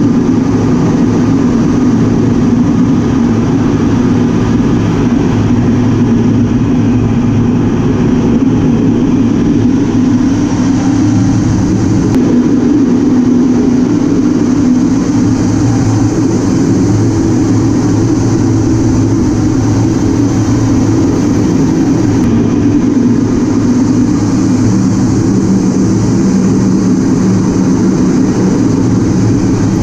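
Steady loud cockpit noise of an A-10 Thunderbolt II in flight, heard inside the cockpit: its two General Electric TF34 turbofan engines and the airflow over the canopy, a low drone with a thin high whine above it.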